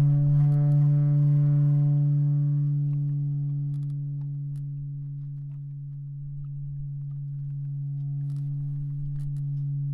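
Halldorophone, a cello-like electro-acoustic string instrument, holding one low note as a steady drone with a ring of overtones. The drone swells at the start, fades to its quietest around the middle, then grows again near the end.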